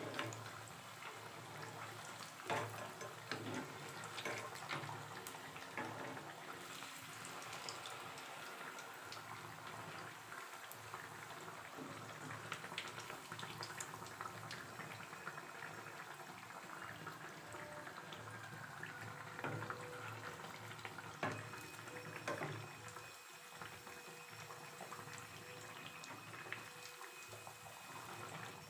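Malpua frying in deep hot oil: a steady bubbling sizzle, with a few sharp clicks of the metal slotted spoon against the pan.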